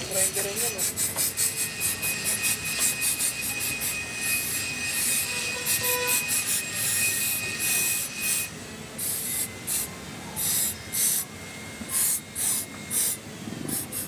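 Aerosol spray cleaner hissing from a can in many quick, short bursts, then in longer bursts spaced about a second apart in the second half, as it is sprayed onto a scooter's CVT pulley and clutch parts to degrease them.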